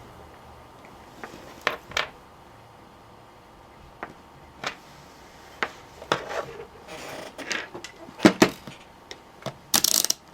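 Tools and small parts being handled on a workbench: scattered clicks, taps and light knocks as things are picked up and set down, busier in the second half, with a short rustle near the end.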